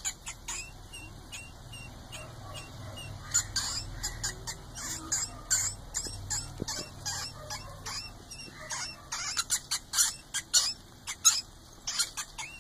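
A mouse squeaking over and over at a cat, in many short, sharp squeaks that come irregularly and at times in quick runs.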